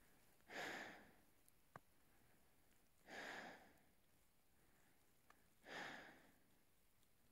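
A climber breathing at high altitude: three long breaths about two and a half seconds apart, each starting sharply and fading.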